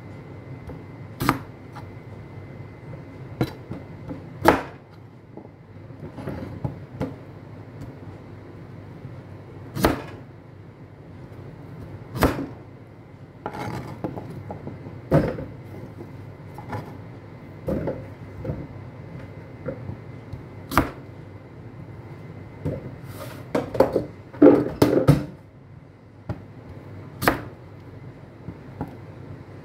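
Chef's knife chopping through raw beetroot and knocking on a cutting board: single sharp chops every few seconds, with a quicker run of several chops late on.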